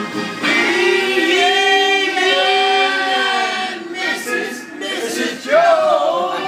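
A man singing in long, sliding held notes, in two phrases with a break between them about four seconds in, where a few scratchy strokes are heard.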